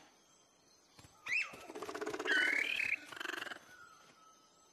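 Cartoon creature vocal effects: about a second in, a short rising chirp, then a rapid chattering trill with a squeaky whistle in it, lasting about two seconds.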